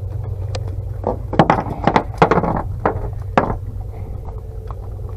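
A fish flopping on a fiberglass boat deck, a quick run of slaps and knocks for a couple of seconds, over a steady low hum.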